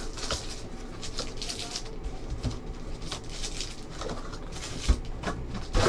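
Foil trading-card packs crinkling and a cardboard hobby box rustling as packs are pulled out of the box by hand, with a sharp knock near the end.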